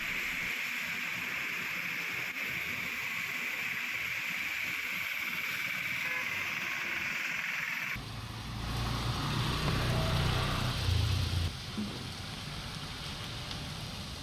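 Rain and traffic on a flooded road: a steady hiss of rain and tyres on wet tarmac. About eight seconds in, after a cut, a vehicle engine rumbles close by for a few seconds, then the wet hiss goes on.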